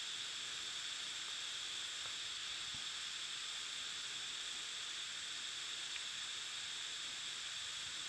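Steady hiss of recording noise and room tone picked up by a phone screen recording.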